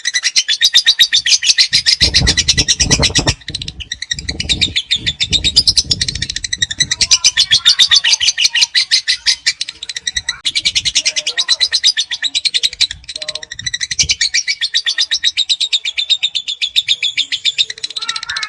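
Lovebird giving its long, rapid, high-pitched chattering trill (the 'ngekek panjang' that fanciers prize), pulsing many times a second with brief breaks near 4 seconds and 10 seconds in. Low thumps sound under it in the first several seconds.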